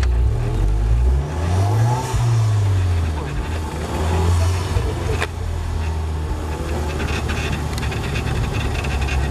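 KTM X-Bow's turbocharged four-cylinder engine pulling away and accelerating: it rises in pitch, drops about two seconds in as the driver shifts up, rises again, then runs steadier. A single sharp knock comes a little past five seconds in.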